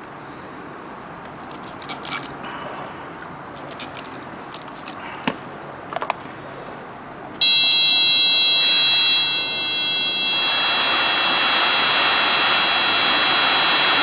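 Saab 9-3 HVAC blower motor, out of the car and powered from a power probe, starting suddenly about seven seconds in with a steady high whine, then the rush of air from its squirrel-cage fan as it keeps running. The motor is water-damaged, with worn brushes and armature.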